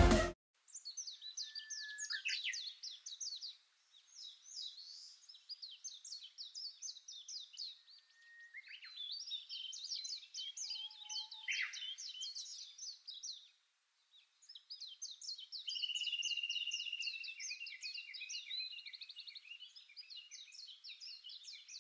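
A songbird singing: long phrases of rapid, repeated high chirping notes, each run lasting a few seconds, with short pauses between them.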